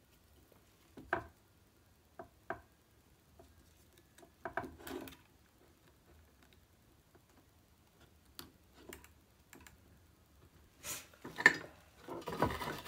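Scattered light clicks and taps from handling small guitar wiring parts and tools on a workbench, a few isolated knocks at first, then a busier run of handling noise near the end.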